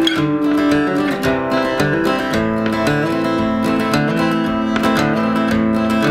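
Music: a strummed acoustic guitar, with no singing.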